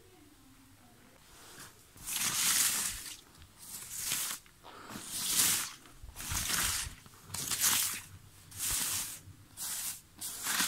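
Paper banknotes rustling and crinkling as a hand sweeps and shuffles through a loose pile of them: a string of swishes, about one a second, starting roughly two seconds in.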